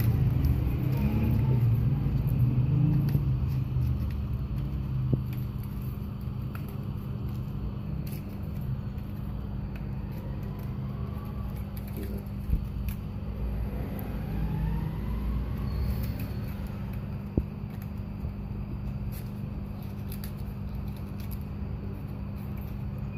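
A steady low rumble with a constant hum, with a few single sharp clicks over it.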